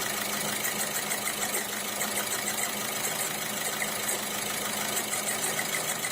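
VW Golf 6 1.6 TDI diesel engine idling, with an irregular metal-on-metal knocking and clicking. The knock comes from the alternator's overrunning clutch pulley, which has begun to stick, not from the engine itself.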